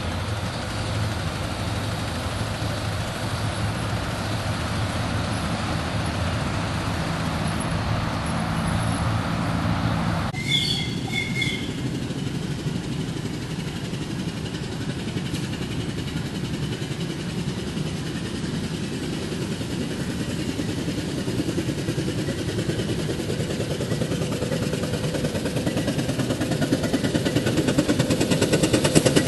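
5-inch gauge live-steam model of a NSW C38 class locomotive: a steady hiss and hum for the first ten seconds or so, then abruptly quieter, after which its exhaust beats approach and grow steadily louder into rapid, even chuffing near the end.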